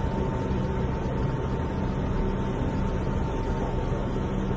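Subway train car in motion, heard from inside the car: a steady low rumble with a constant high whine running over it.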